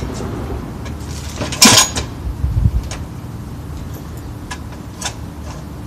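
Tools and hardware being handled in the shop: a brief clatter about a second and a half in, then a dull thump and a few faint clicks.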